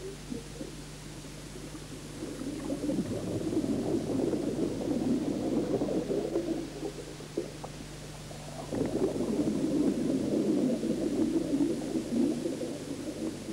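A scuba diver's exhaled air bubbles gurgling and rumbling, heard underwater, in two long bursts a few seconds apart. A steady low hum runs beneath them.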